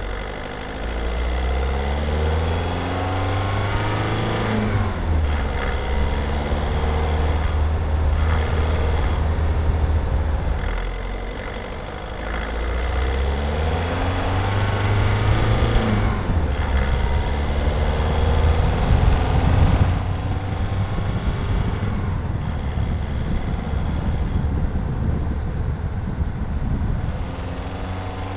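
Skoda Octavia 1.6 TDI (CAYC) four-cylinder turbodiesel, heard raw from under the bonnet while driving. The revs climb and drop back twice at gear changes, then the engine holds steady for the second half.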